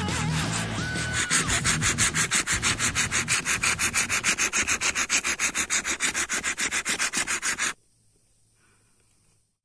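Bow drill spindle rubbing in a wooden hearth board in fast, even back-and-forth strokes, about six or seven a second, as friction builds toward a coal. The strokes stop suddenly about three-quarters of the way through.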